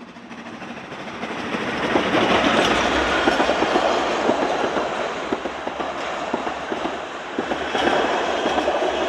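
Isle of Man Steam Railway narrow-gauge steam train, locomotive and coaches, passing close by. It grows louder over the first two seconds, then holds loud with a steady clatter of wheels clicking over the rail joints.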